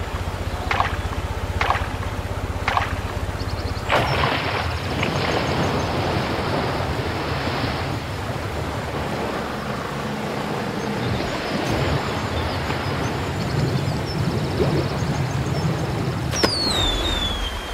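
Cartoon sound effects: a low rumble with regular knocks about once a second. From about four seconds in, a steady rush of churning water takes over. Near the end a sharp falling squeal sounds.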